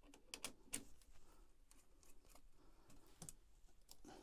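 Faint, scattered clicks and light metallic taps of rod pod parts being handled as a buzz bar is screwed onto the front of the pod's centre bar.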